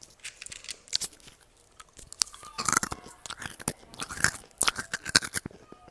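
Mouth chewing crunchy dry food close to the microphone: crisp crackling crunches, a few light ones at first, then a dense run of loud bites and chews through the second half that stops shortly before the end.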